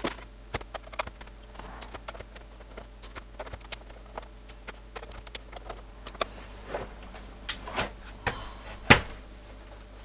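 Scattered clicks and light knocks of a screwdriver working the screws out of a Sinclair QL's plastic base, and of the plastic case being handled. The knocks grow louder in the second half, with the loudest sharp knock near the end as the case is turned over and set down.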